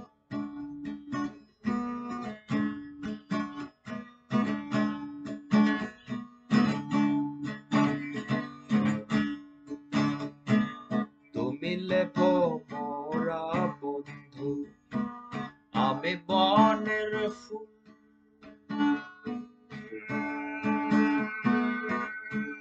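Acoustic guitar playing an instrumental break in a Bengali folk song, a quick run of plucked and strummed notes over a repeating low pattern, pausing briefly about three quarters of the way through.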